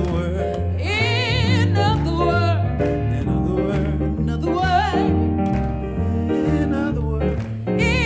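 Live jazz trio: a woman's voice singing sustained notes and runs with strong vibrato, over an upright double bass playing a bass line that steps from note to note and grand piano chords.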